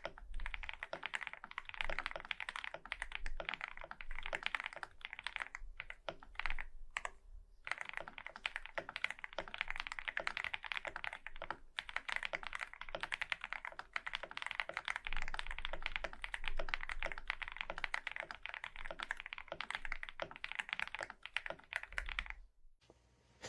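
Fast continuous typing on a mechanical keyboard fitted with Akko V3 Penguin tactile silent switches. The keystrokes are muted, with a brief pause about seven seconds in, and the typing stops shortly before the end.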